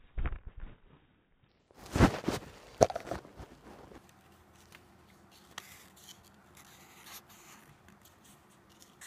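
Black felt-tip marker writing on a sheet of paper: faint scratching strokes, after a loud rustle of handling about two seconds in.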